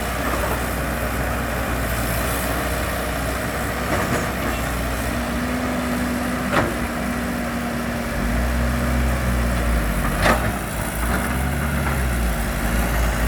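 Diesel engine of heavy earthmoving machinery running steadily, its note getting louder and fuller about eight seconds in as it takes load. Two sharp clanks come a few seconds apart.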